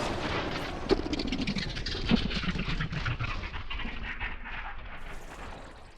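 Cinematic suspense sound effect: dense crackling noise with a low tone sliding downward, sharp hits about one and two seconds in, gradually fading out near the end.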